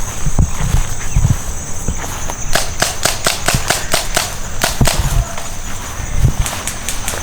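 Airsoft guns firing: a quick, irregular string of about a dozen sharp snaps over two or three seconds, with dull low thumps of movement around them.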